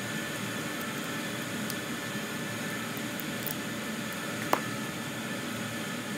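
Steady workshop hiss, with a few faint metal ticks and one sharp click about four and a half seconds in, as a small ratchet and bit work a screw on a BMW transfer case actuator housing.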